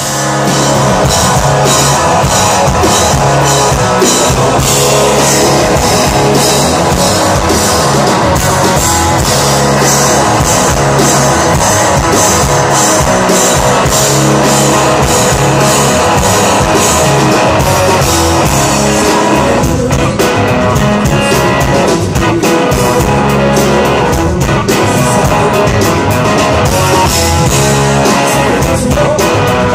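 Hard rock band playing live and loud: electric guitar, bass guitar and drum kit.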